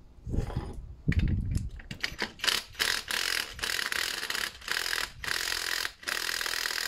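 Cordless impact wrench hammering in about five short bursts on the top nut of a front shock absorber strut assembly, starting about two seconds in.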